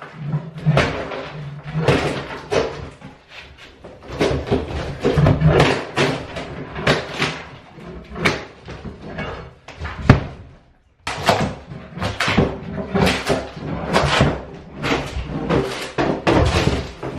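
Old floor covering being pried and torn up from wooden floorboards with a pry bar: a dense run of irregular knocks, cracks and scrapes, pausing briefly about ten seconds in.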